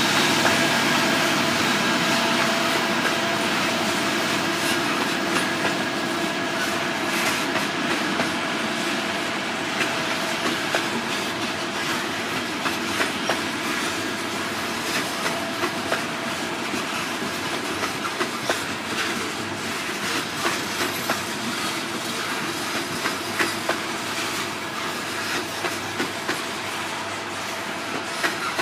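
Loaded coal hopper cars rolling slowly past on a grade, the wheels clicking steadily over rail joints with a faint steady squeal from the wheels. The sound eases off slowly.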